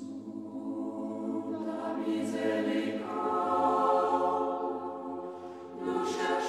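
Choral music with long held sung notes. It grows louder about three seconds in, eases off, and a new phrase begins near the end.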